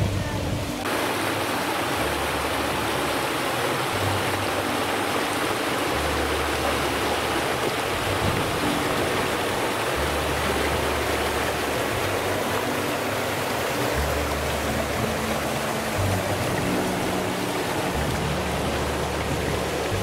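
A river rushing over a small cascade: a steady hiss of flowing water that fills out about a second in. Soft background music plays under it, with low bass notes changing about every two seconds.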